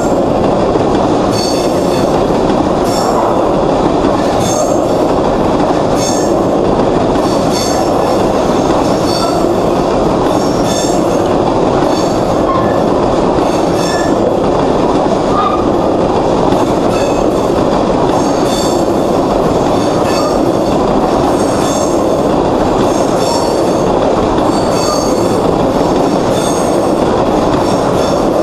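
Freight train of tank cars rolling past close by: a loud, steady rumble of steel wheels on rail, with short high-pitched wheel squeaks and clicks recurring about once a second.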